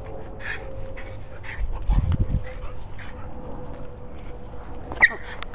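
Dog whimpering in short, repeated high calls, with a low thump about two seconds in and a sharp click near the end.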